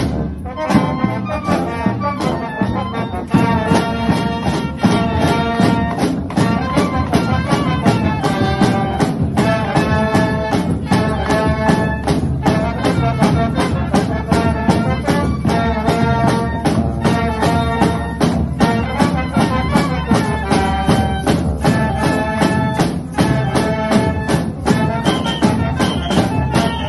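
Street marching band playing: large bass drums and snare drums beat a steady rhythm under a tune on trombones and trumpets.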